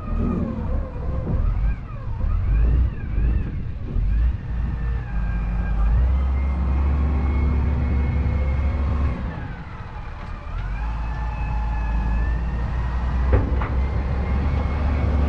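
Diesel engines of a Cat hydraulic excavator and a Cat articulated dump truck running with a deep rumble while the excavator loads dirt into the truck, with a high whine that rises and falls over it. A single sharp knock comes near the end.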